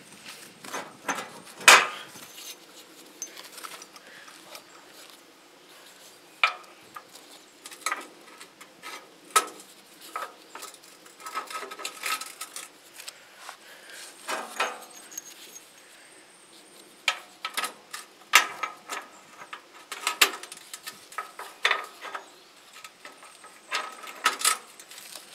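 Steel washers and metal parts clinking and tapping as washers are set under a small engine's mounting pegs on a steel go-kart frame. Irregular light metallic clicks and knocks, the loudest about two seconds in.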